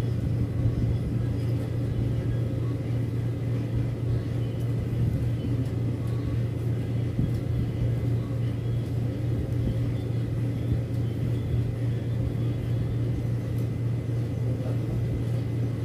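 A steady low hum, as of a motor running, with no change in level throughout. Faint light rustling of plastic raffia strands being pulled apart by hand sits under it.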